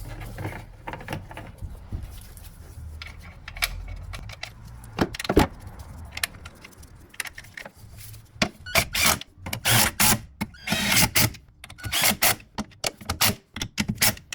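Hand tools clicking and clinking on metal as suspension nuts and bolts are tightened, with one sharp knock about five seconds in and quick runs of clicks through the second half.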